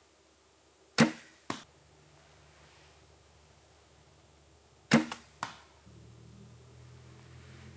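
Longbow shot twice: each a sharp snap of the string on release, followed about half a second later by a smaller smack as the arrow strikes a stump.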